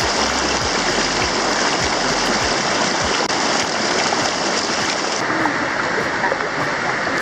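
Hot spring water rushing steadily down a cascade of small rock steps. The hiss turns slightly duller about five seconds in.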